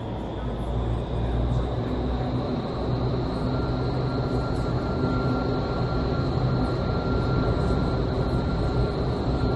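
Vertical wind tunnel running: a steady roar of the fans and rushing air, heard from outside the glass flight chamber. A faint high whine runs throughout, and a thin steady tone joins about three and a half seconds in.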